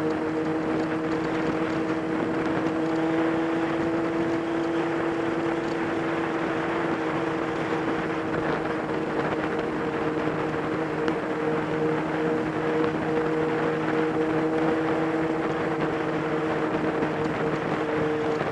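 Motorcycle engine heard from on board, cruising at a steady speed with an even droning note that barely changes pitch, over a constant rush of wind noise.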